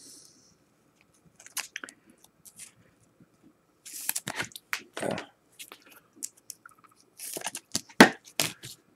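Clear plastic card sleeve crinkling and rustling as a trading card is slid into it and handled, in short scattered spells with a few sharp clicks, the sharpest near the end.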